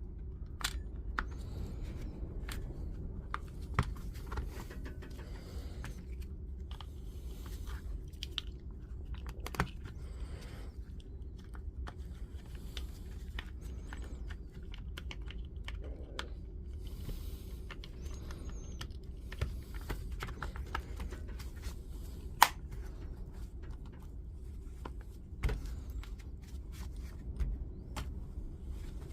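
Scattered small clicks, taps and rattles of the DeWalt DCS355 multi-tool's plastic housing and internal parts being handled and fitted back together, with one sharper click about 22 seconds in, over a steady low hum.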